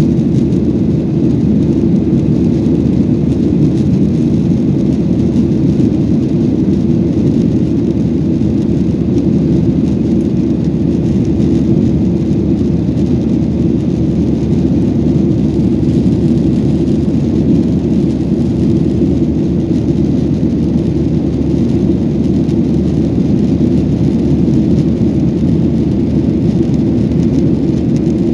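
Airliner cabin noise after take-off: the steady, loud low rumble of the jet engines and rushing air, heard from inside the passenger cabin.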